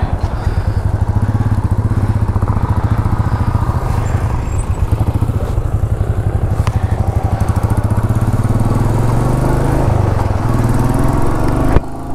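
Royal Enfield Meteor 350's single-cylinder engine pulling away at low revs with a steady pulsing beat, the pitch climbing in the second half as the motorcycle accelerates.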